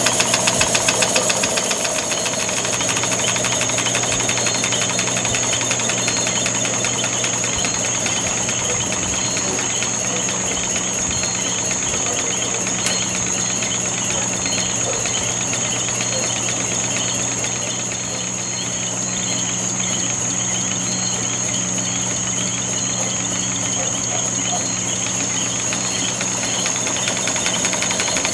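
York Bolton model mill engine running steadily on compressed air, its exhaust beating in a fast, even rhythm, with a steady high whine above it.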